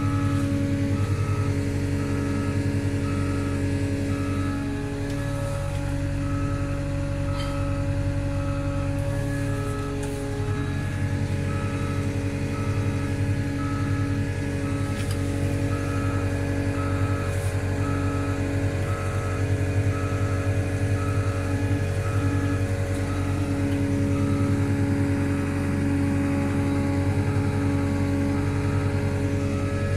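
Diesel engine of a Caterpillar CW34 pneumatic-tyred roller running steadily under way, heard from the operator's seat. A warning beeper sounds at an even pace, roughly one to two beeps a second.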